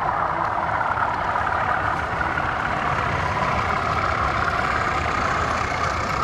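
Steady running noise of model trains on an exhibition layout, mixed with the general din of the exhibition hall.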